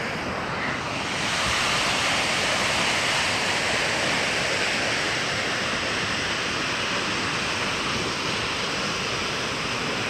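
Steady rushing of fast-flowing water, a little louder from about a second in.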